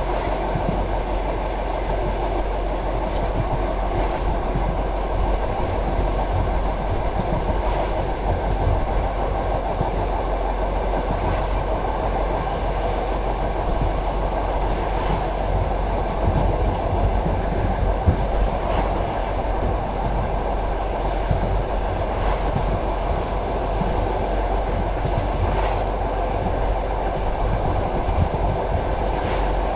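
Passenger train carriage rolling along the track: a steady rumble of wheels on rail, with faint clicks now and then as the wheels pass over rail joints.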